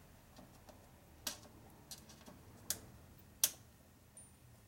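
Steel parts of a 1942 Harley-Davidson WLC 45 transmission clicking against one another as they are handled and fitted by hand: four sharp metal clicks, unevenly spaced, with fainter ticks between.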